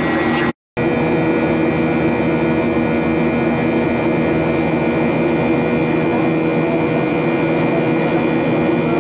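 Steady in-flight cabin noise of a Boeing 737 jet airliner heard beside the window: a constant rumble of engines and airflow with a steady high whine over it. The sound cuts out completely for a moment about half a second in, then carries on unchanged.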